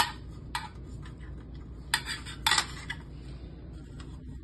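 Light clicks and clinks of smart lock parts being handled while the lock's wires are pushed into place: a sharp click right at the start, then a few more, the strongest about two and two and a half seconds in.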